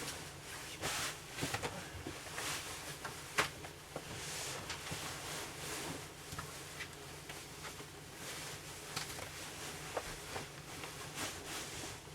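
Bedsheets rustling as they are tucked in around a mattress, with repeated soft swishes of fabric and scattered light knocks.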